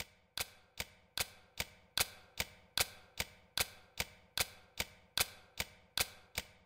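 Sharp, evenly spaced ticking, about two and a half ticks a second, opening a film score.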